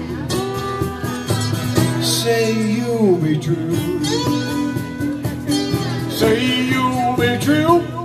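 Live guitar band playing: an acoustic guitar laid flat and played with a slide bar glides up and down between notes, over a strummed acoustic guitar and a hollow-body electric guitar.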